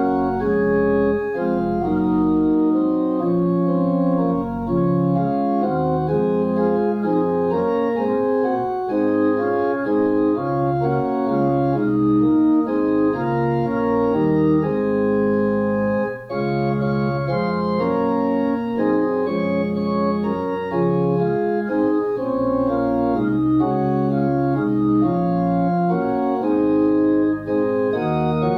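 Organ music: a slow piece of held chords that change every second or so, with a brief break about sixteen seconds in.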